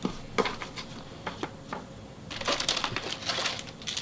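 Trading cards being handled and flicked through, with a few sharp card snaps, then a crinkling rustle starting a little past halfway.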